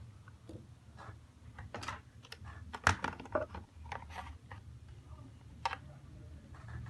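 Scattered light clicks and taps, one sharper about three seconds in, over a steady low hum: small tools and phone parts being handled while the Nokia 106's faulty speaker is swapped for a new one.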